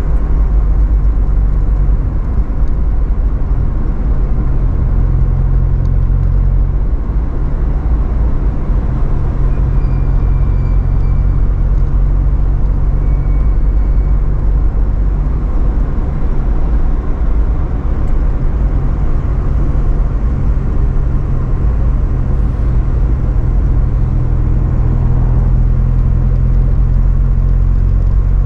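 Toyota AE86 Sprinter Trueno's engine running at steady cruising revs, with road noise, heard from inside the cabin.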